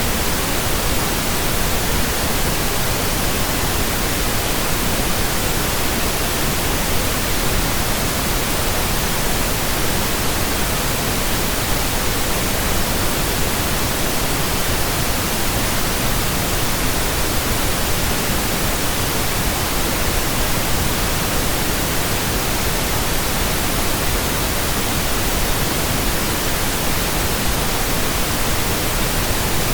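Steady, unchanging pink noise: an even hiss across the whole frequency range, with no tones or events.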